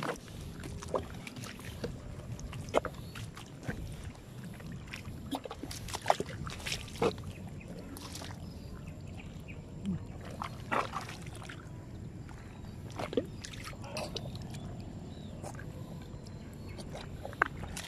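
Wet mud squelching and slopping as feet tread and hands dig into soft tidal mud to open a mudskipper burrow, in short irregular sucks and slaps.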